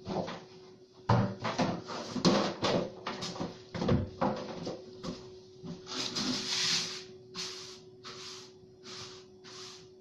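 Knocks and rustling from someone moving about and handling things, then, about six seconds in, a run of short, rhythmic swishing strokes, roughly one every two-thirds of a second, over a faint steady hum.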